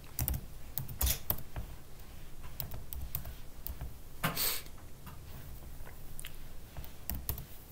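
Computer keyboard keystrokes, a few scattered key clicks as a terminal command is typed, with a short hiss about four seconds in.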